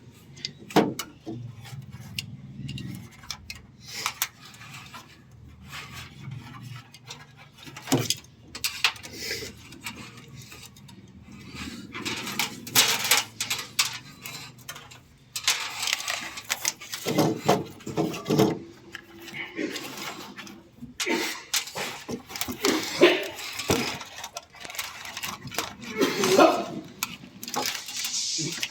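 Scattered metallic clinks and knocks of tools and hardware being handled during electrical work, with some talk between them.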